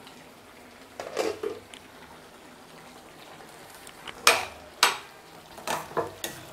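Perforated steel spatula scraping and clinking against a stainless steel kadai while stirring thick wheat rava upma, a few short strokes, the loudest about four and five seconds in.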